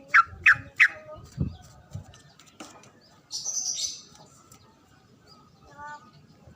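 A songbird calling: three quick, loud, downward-sweeping chirps in the first second, then a low thud, a short hissing rush about halfway through and a few faint calls near the end.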